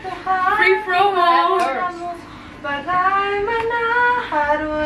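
A young woman's voice singing in long, held, wavering notes: two phrases with a short break about two seconds in.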